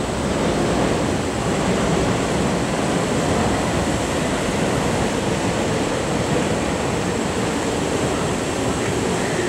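JR Central 313 series electric train standing at a station platform, giving off a steady hum and hiss from its running auxiliary equipment, with a faint high whine over it.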